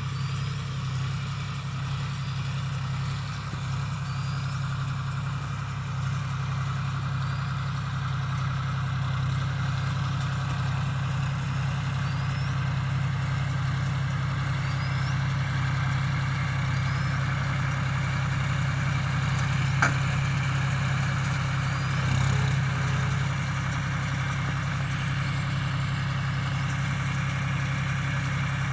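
John Deere 5050D tractor's three-cylinder diesel engine running steadily, driving a baler. A faint short squeak repeats about every two and a half seconds, and there is one sharp click about two-thirds of the way through.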